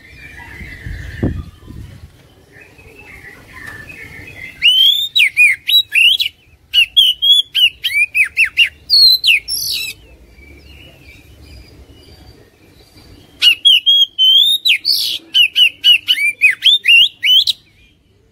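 Oriental magpie-robin singing in two bursts of rapid, varied whistles and down-slurred notes, the first starting about four seconds in and the second after a pause of a few seconds. A faint low rumble comes about a second in.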